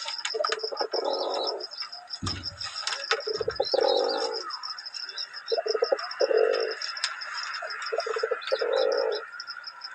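Pigeons cooing in repeated low phrases about two seconds apart, each a few short notes followed by a longer coo, over a continuous fast high chirping. A brief low thump about two seconds in.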